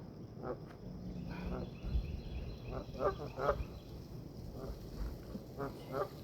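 Ducks quacking: about six short calls, several coming in quick pairs.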